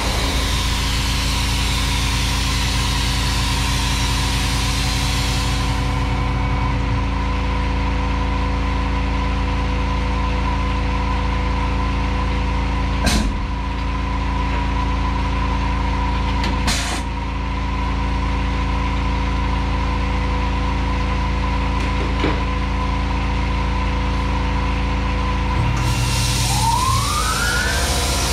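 Tormach 1100M CNC mill standing between operations with a steady machine hum; a hiss cuts off about six seconds in. Two sharp pneumatic blasts, a few seconds apart, come from the power drawbar releasing and clamping the tool during a manual tool change. Near the end the hiss returns and the spindle spins up with a rising whine.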